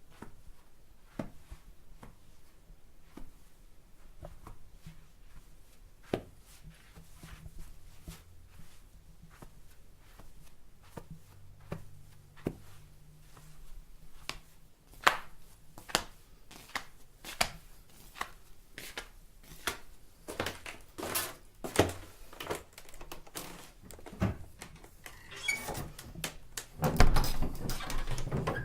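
Footsteps in home slippers, steady soft taps about one a second, growing louder as they come closer. Near the end a burst of rattling clatter with a heavy thump.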